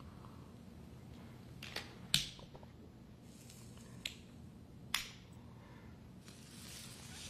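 A glass tumbler clicking and knocking as a man drinks from it in both hands: four short, sharp clicks, the second the loudest, over a faint room hum.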